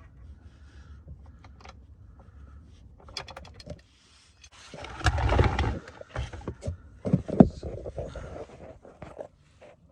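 Metal tool clinks and handling noises as a BMW E46 six-speed manual gearbox's drain plug is undone with a hex key socket, with a louder noisy stretch lasting about a second midway.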